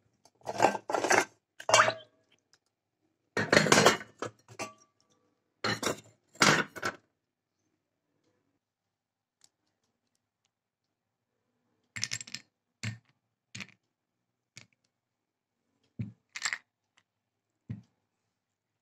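Small clay diyas being handled in a steel bowl of water, clinking and knocking against the steel in a quick cluster over the first seven seconds. After a pause, about six short, lighter knocks as chunks of clay are set into a small clay cup.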